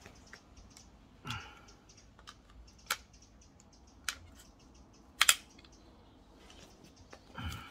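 Metallic clicks from an AP80 rifle's action being handled: a few separate sharp clicks a second or so apart, the loudest a quick double click about five seconds in.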